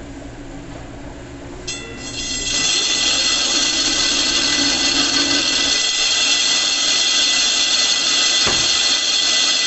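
Gural cheese slicer's circular blade spinning with a low motor hum. About two seconds in, the sharpening stone is set against the blade edge, and a loud, steady, high-pitched grinding screech sets in and holds.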